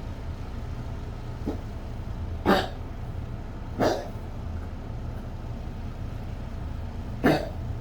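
Yorkshire terrier coughing in short, separate hacks, four in all, spaced one to three seconds apart: a coughing fit from a collapsing trachea.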